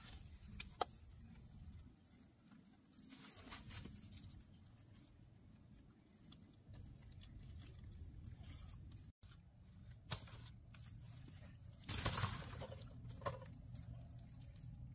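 Faint rustling and scattered small clicks over a low hum, with a louder burst of rustling about twelve seconds in.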